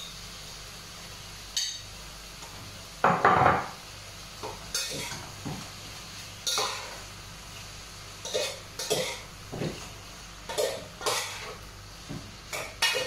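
A metal cooking utensil clinking and scraping against a cooking pot on the stove as food is stirred, in about a dozen irregular knocks. The loudest is a heavier clatter about three seconds in.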